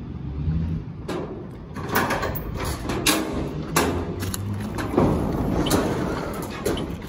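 Metal chain rattling and clanking on a rusty steel door in a corrugated-iron wall as it is unhooked, then the door pulled open, with a run of sharp knocks and clanks from about a second in.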